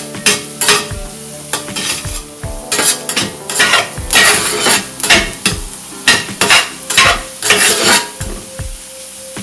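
A flat metal blade scraping and stirring diced mushrooms and onions in a sizzling buttered cast-iron skillet, in quick repeated strokes, two to three a second, that stop about a second before the end.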